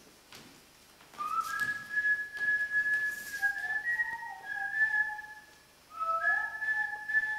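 Whistling of a slow tune: long held notes joined by short upward slides, with a second, lower whistled line joining about halfway. It breaks off for a moment near the end, then resumes.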